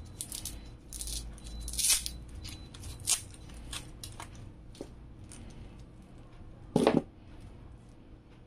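Bundles of flat ribbon-style modular power-supply cables being lifted and handled: plastic connectors clicking against each other and cables rustling in scattered short bursts. The loudest clatter comes a little before seven seconds in.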